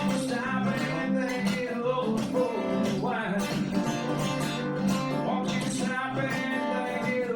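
Acoustic guitar playing an instrumental passage of a country-style song, chords strummed at a steady pace, with no singing.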